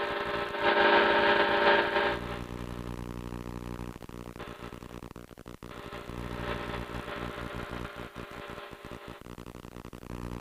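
Challenger ultralight floatplane's Rotax 582 two-stroke engine running steadily in flight. A louder, brighter sound rises over it for about a second and a half near the start.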